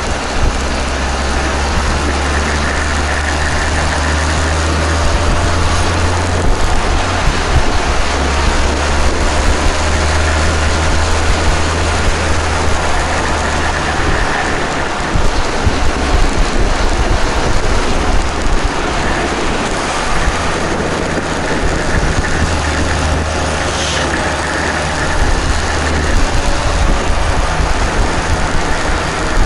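Aprilia RS250's two-stroke V-twin engine running on the move, its pitch rising and falling as the rider works the throttle, under heavy wind rush and rumble on the bike-mounted microphone.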